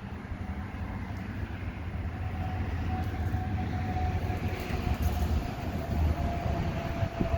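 Steady low rumble of a large passing vehicle, slowly growing louder, with a faint high whine that drifts slightly down in pitch.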